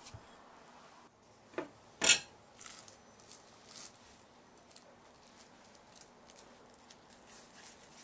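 Hands kneading and pulling apart a soft, crumbly dough of grated sweet potato and potato starch in a glass bowl: soft squishy pats and rustles. About two seconds in there is one sharp, loud knock.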